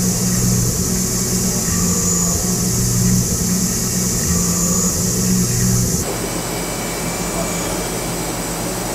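Tormach PCNC mill running a twist drill into an aluminium block: a steady spindle drone with a high hiss, its low tones dipping briefly a few times. About six seconds in it changes abruptly to a quieter, steady machine hum.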